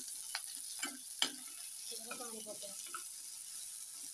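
Chopped onion, garlic, ginger and green chillies sizzling in oil in a kadai, with a spoon knocking against the pan three times in the first second and a half and scraping through the mixture about two seconds in as it is stirred.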